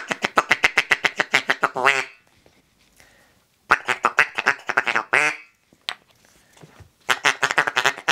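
Mallard duck calls blown in a rapid feeding chuckle, about ten clucks a second. There are three runs of one and a half to two seconds, with a switch to a different call between runs.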